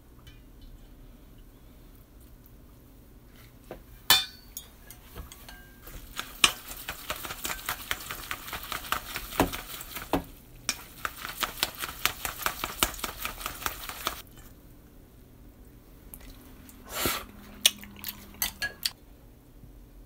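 Cooked noodles being stirred and tossed in a stainless steel mixing bowl: a dense run of rapid clicking and wet rustling for about eight seconds in the middle, with a few sharp clinks of a metal spoon against the bowl before and after it.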